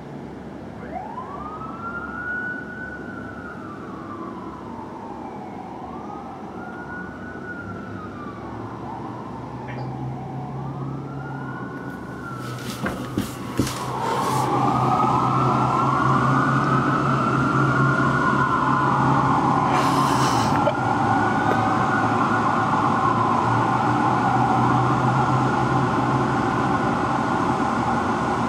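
Fire apparatus sirens in a slow wail, rising and falling about every three and a half seconds, growing much louder about halfway through as the trucks draw near. From then on two sirens overlap over a steady low truck-engine drone, with a few sharp clicks around the midpoint and a brief hiss later on.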